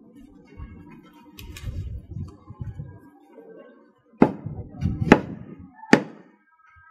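A large knife striking into the top of a bamboo pole to split it: three sharp chops, a little under a second apart, in the second half.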